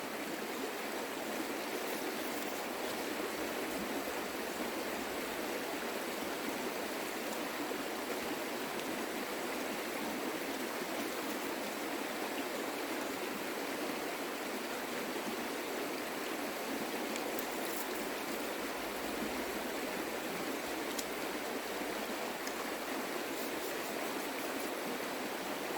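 Creek water flowing: a steady, even rush of running water.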